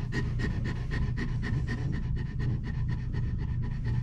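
German Shepherd in labour panting steadily, about three quick breaths a second: the heavy panting of a dog during contractions.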